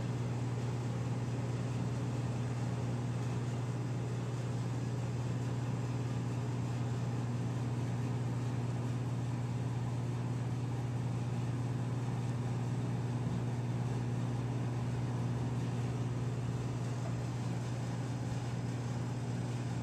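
A steady low hum at an even level, with no change throughout and no separate knocks or hoofbeats standing out.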